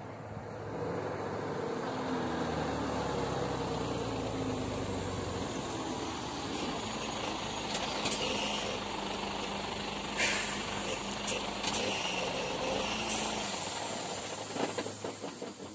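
A motor vehicle engine running close by, a steady noisy hum with a few sharp clicks, tailing off near the end with a quick run of rattling clicks.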